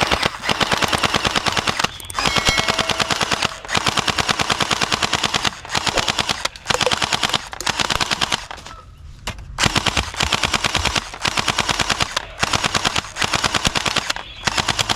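Toy AK-47 submachine gun firing in rapid automatic bursts of about one to two seconds each, with short pauses between bursts.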